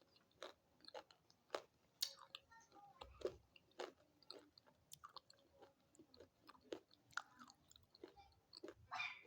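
Someone chewing hard, brittle pieces of slate pencil or chalky stone: irregular sharp, crisp crunches, a few each second.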